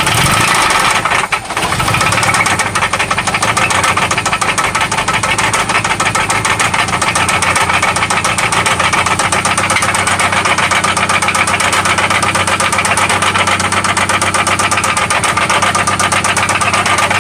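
A 1995 Toyota Celica ST's four-cylinder engine running with a steady, rapid, even knock from inside the engine.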